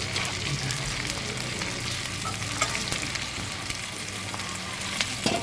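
Small freshwater shrimp frying in hot oil: steady sizzling with many fine crackles.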